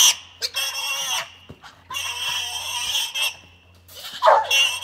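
A caught pig squealing in three long, harsh screams while it is being held.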